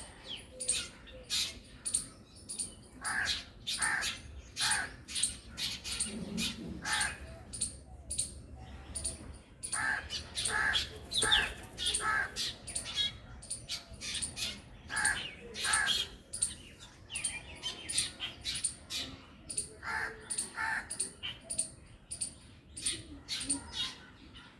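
Black drongo and squirrel calling: a long run of short, sharp calls repeated one to three times a second.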